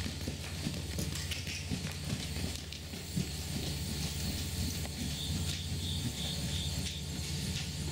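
Soft hoofbeats of an Andalusian horse trotting on sand arena footing, over a steady low rumble and hiss. A faint repeated chirp comes about five seconds in.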